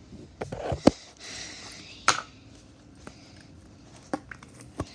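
Plastic slime containers being handled: a few sharp knocks and clicks, the loudest a little under a second in and another about two seconds in, with a brief soft rustle between them and fainter clicks near the end.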